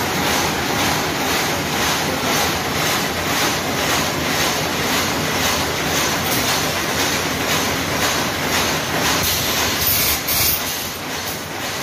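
LMW LV55 vertical machining center running, a steady mechanical whirr with a faint regular pulsing as its axes travel. About ten seconds in, a brief clatter as the automatic tool changer arm swaps a tool.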